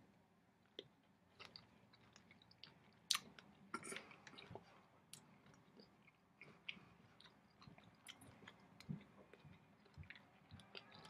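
Near silence broken by faint, scattered clicks and small crackles, the clearest about three seconds in.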